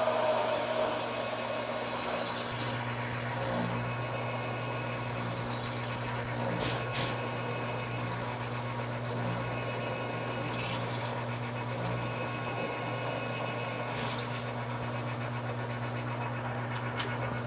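Small metal lathe running steadily while a drill bit fed from the tailstock bores the pilot hole through a stainless steel muzzle brake, with high-pitched squeals from the cut coming and going through the middle.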